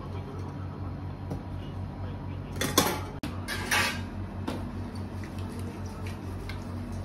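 Metal clattering and clinking on a bakery work bench where dough is being divided and weighed on a balance scale with a metal pan, in two short bursts around the middle. A steady low machine hum runs underneath.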